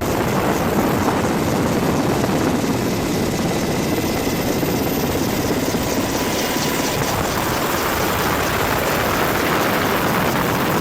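Helicopter flying close by, with steady loud rotor and turbine noise and a fast, even rotor chop.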